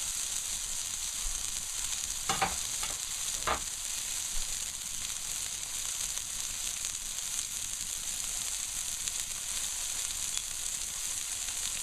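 Seasoned ground-beef burger patties sizzling in a very hot frying pan as a steady high hiss, with two short knocks about two and three and a half seconds in.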